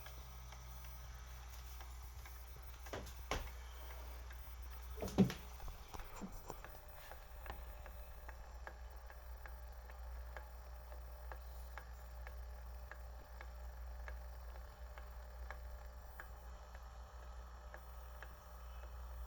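Aquarium Co-Op aquarium heater clicking: a run of light, sharp clicks, roughly two a second, over a steady low hum. A couple of louder knocks come about three and five seconds in.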